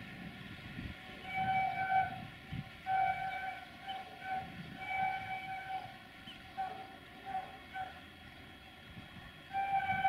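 Locomotive horn of CFR locomotive 64-1357-4 sounding a rhythmic run of short and longer honks, some in quick pairs, as the train approaches. Just before the end a louder, long blast begins.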